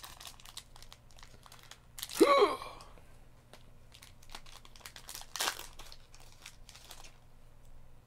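Foil trading-card booster pack crinkling and tearing as it is opened by hand and the cards are slid out: a run of small crackles with a louder crinkle about five seconds in. About two seconds in there is a brief pitched sound that rises and falls, like a short murmur.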